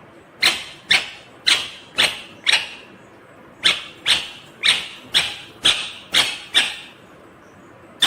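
Indian ringneck parrot screeching in a rapid series of short calls, about two a second: five calls, a brief pause, then seven more.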